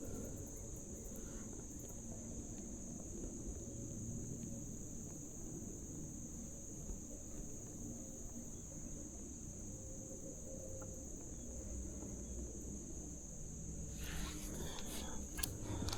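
Steady high-pitched drone of an insect chorus, over a low rumble. Light clicking and rustling come in near the end.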